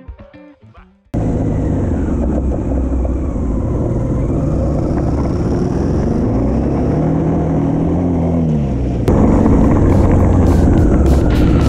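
Motorcycle engine and wind noise on a bike-mounted camera, starting abruptly about a second in as faint music fades; the engine pitch dips and rises a few times as the rider works the throttle. It gets louder about nine seconds in, with sharp ticks near the end.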